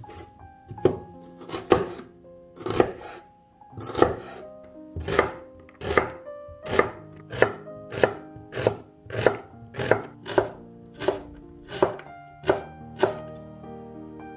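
Kitchen knife chopping an onion on a bamboo cutting board: a row of sharp chops, slow at first, then quickening to nearly two a second, stopping near the end. Soft background music plays underneath.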